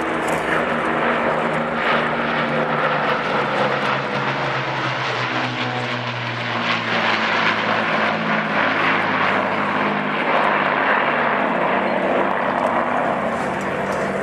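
Two Avro Lancaster bombers flying past, their Rolls-Royce Merlin V12 piston engines and propellers making a steady, loud drone that shifts slightly in pitch as they pass.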